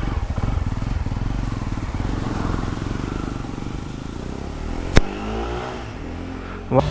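Jawa 42 2.1's single-cylinder engine running through its twin exhausts, a fast steady low exhaust pulse that eases somewhat after about three seconds. A single sharp click about five seconds in.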